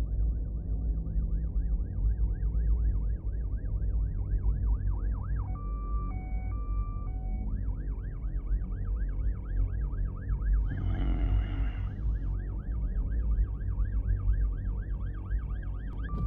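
Electronic alarm siren wailing rapidly up and down, about four sweeps a second, over a deep steady rumble. Around six seconds in, the wail gives way to an alternating two-tone beep for about two seconds before resuming, and a short noisy burst cuts in around eleven seconds.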